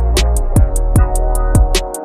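Background music with an electronic beat: a fast, steady tick at about five a second over deep thumping bass drums that drop in pitch, with sustained notes underneath.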